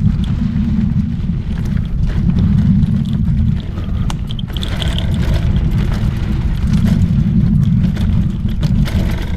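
Heavy wind rumble on the microphone as a mountain bike rides fast down a dirt trail, with short clicks and rattles from the bike over the bumps.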